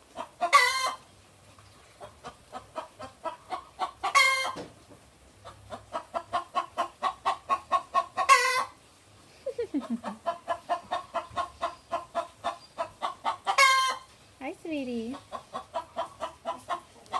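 A hen cackling: runs of rapid, building clucks, each ending in a loud drawn-out squawk, four times over. This is the cackle hens give around laying an egg.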